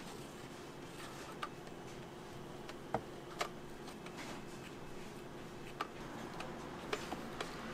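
Slotted metal spatula spreading chocolate over a crepe, ticking and clicking against the metal tray a handful of times at irregular moments, over a faint steady hum.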